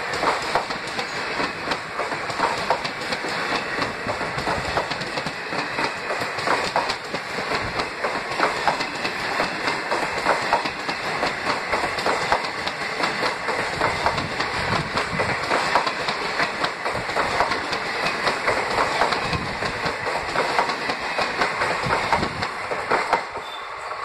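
Passenger train coaches rolling past close by at speed, their wheels clattering steadily over the rail joints over a continuous rushing rail noise.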